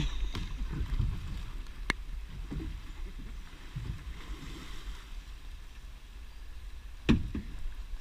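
A plastic kayak capsizing in flooded creek water: splashing as it rolls over, then moving water over a steady low rumble. A sharp click about two seconds in and a loud knock about seven seconds in.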